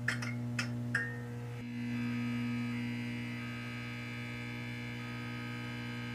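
Steady electrical buzz with many overtones, the hum of a neon-sign sound effect, with a few sharp crackling clicks in the first second; it grows a little louder about one and a half seconds in.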